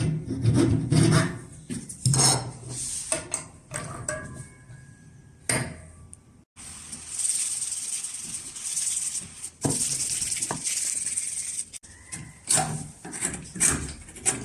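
Homemade high-speed-steel flat chisel scraping and paring wood in a series of strokes of varying length, with one longer continuous scrape about halfway through and a couple of light knocks.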